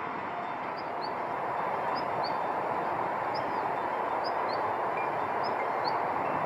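A small bird repeats short, high double chirps about once a second over a steady rushing background noise.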